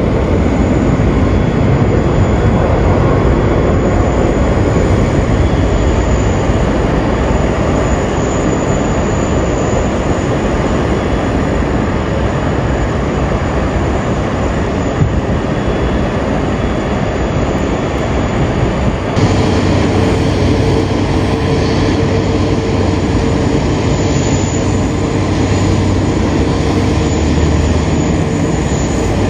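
Boeing 777-300ER's GE90 jet engines running loudly during departure, a steady dense rumble and roar. About two-thirds of the way through the sound changes abruptly and a steady low hum comes in.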